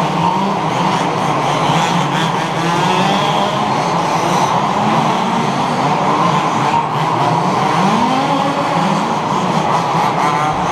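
Several HPI Baja 1/5-scale RC buggies racing, their small two-stroke petrol engines running together, the overlapping engine notes rising and falling as they rev and back off.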